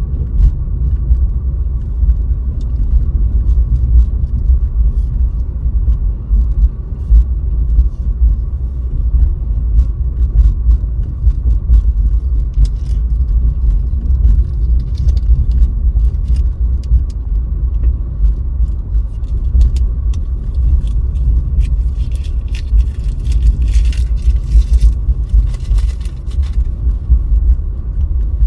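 Steady low rumble of a car driving on a snowy road, heard through a dashcam's microphone, with scattered light ticks. A stretch of louder hiss comes about three quarters of the way through.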